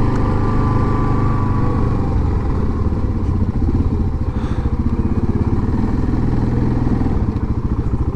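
Yamaha Grizzly 700 ATV's single-cylinder engine running steadily at low speed, easing a little and pulsing more slowly after about three seconds.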